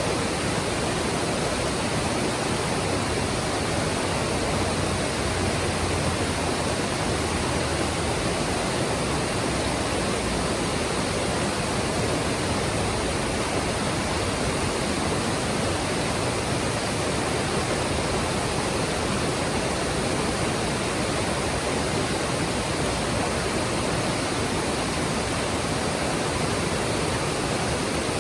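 Mountain stream: clear water rushing and splashing over rocks in a steady, even wash of sound.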